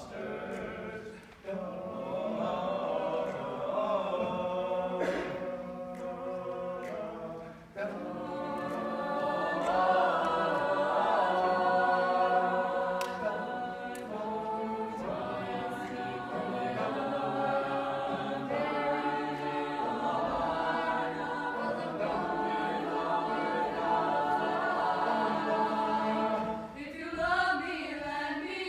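Mixed choir of men's and women's voices singing a cappella in held chords, with short breaks between phrases about a second and a half in and near eight seconds.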